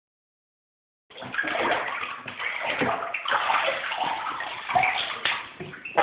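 Bathwater splashing and sloshing in uneven strokes as a small child plays in a bathtub, starting about a second in.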